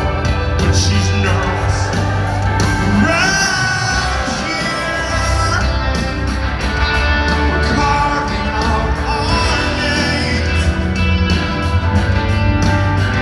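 Rock band playing live in an arena, with a male lead vocal singing over bass, drums and keyboards or guitars.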